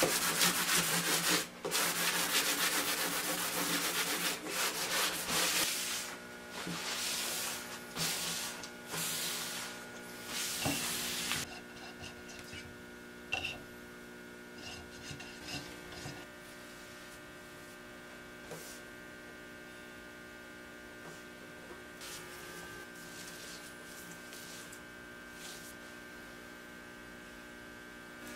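Wooden tabletop being sanded by hand between varnish coats: a rubbing sound in repeated strokes that stops about eleven seconds in. Then faint taps and scrapes as a can of polyurethane is stirred, with a steady electrical hum throughout.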